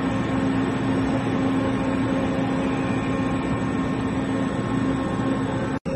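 HNK HB-130 CNC horizontal boring mill running under power, giving a steady mechanical hum with an even noise, broken by an instant of silence near the end.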